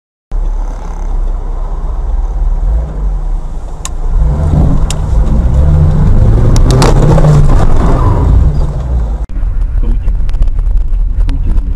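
Car engine and road rumble, loud and low, starting abruptly after a moment of silence. A few sharp clicks come in the middle, where the rumble is loudest, and there is a brief dropout near the end.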